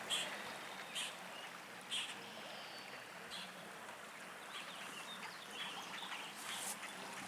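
Faint, scattered short bird chirps, a few seconds apart, over a quiet outdoor hiss.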